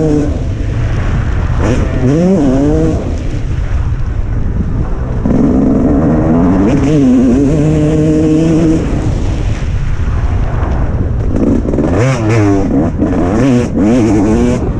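Motocross bike engine revving hard, its pitch climbing and dropping as the throttle opens and closes. It holds a high, steady pitch for a few seconds in the middle, then rises and falls quickly in short bursts near the end.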